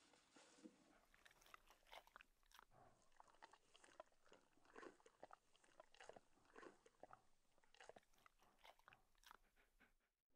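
Near silence, with faint, irregular clicking and crackling.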